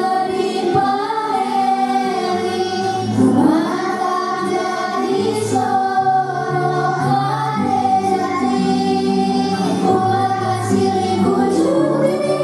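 A group of children singing together over backing music, holding long notes.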